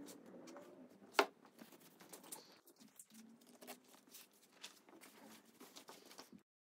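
Paper rustling as magazine sheets taped over a wooden cabinet top are lifted off, with one sharp click about a second in. The sound stops abruptly near the end.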